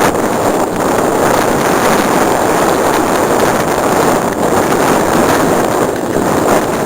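Loud, steady rushing of wind buffeting the camera microphone while riding a mountain bike down a trail.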